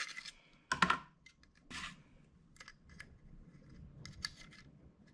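Metal clicks and a short scrape as a fresh stick of staples is loaded into a DuoFast hand stapler, with a sharp click a bit under a second in and small light clicks after.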